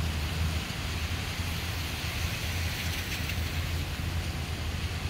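City street traffic on a wet road: a steady low rumble of engines with the hiss of tyres on wet pavement, which swells a little as a vehicle passes about halfway through.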